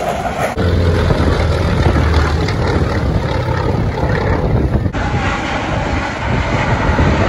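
Loud, steady jet noise from military fighter aircraft, a broad rumble with a strong low end. The sound changes abruptly about half a second in and again about five seconds in.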